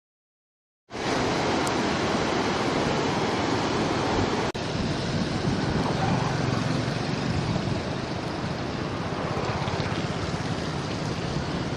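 Steady roar of rushing floodwater, with wind buffeting the microphone. It starts suddenly about a second in and breaks off for an instant about four and a half seconds in.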